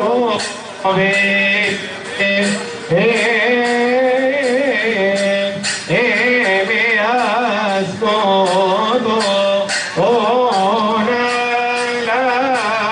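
Arabic devotional praise song (madih) to the Virgin Mary, with a sung melody full of vibrato over a steady drone and a regular drumbeat of about two strokes a second.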